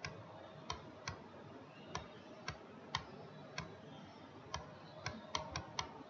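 Faint computer mouse button clicks, about a dozen sharp clicks at irregular intervals, coming quicker near the end, as the pen tool is pressed and released for each stroke of hand-drawn lettering.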